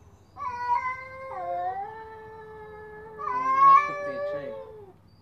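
Cats yowling at each other in a territorial standoff: one long, drawn-out caterwaul that starts about half a second in, slides in pitch, swells louder and higher around three and a half seconds in, then fades near the end.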